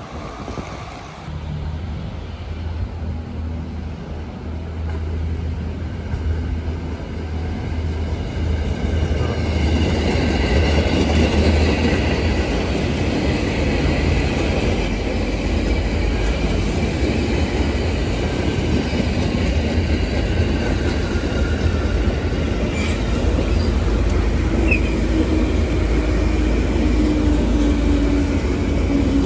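KRL Commuter Line electric multiple unit passing close by: a low hum grows into a steady rumble of wheels on the rails from about nine seconds in. A faint whine comes in near the end.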